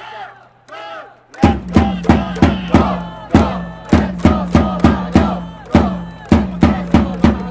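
Japanese pro-baseball cheering section: fans shout together, then about a second and a half in the drums start beating about three strokes a second under trumpets and the crowd chanting a player's cheer song.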